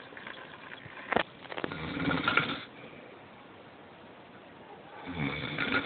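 A man snoring in his sleep: two long snores about three seconds apart.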